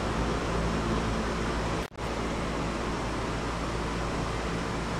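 Steady fan-like running noise with a low hum underneath, which cuts out for an instant about two seconds in.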